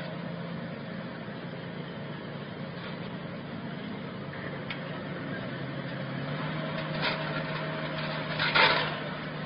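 Engine running steadily at idle, a low hum with a shift in its tone about halfway. Near the end comes one short, loud burst of noise.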